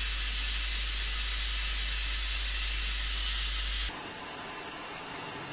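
White noise test signal from the signal generator: a steady, even hiss over a low hum. About four seconds in it drops off suddenly to a fainter hiss.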